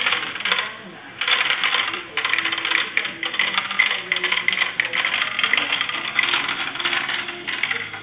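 Marbles clattering down a plastic marble run: rapid, continuous clicking and rattling, with a short lull about a second in.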